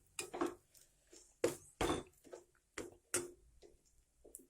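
A spoon scraping and knocking against a pan as semolina (rava) is stirred while it dry-roasts: a string of sharp, irregular clicks and taps, several strokes a second at times, then pauses.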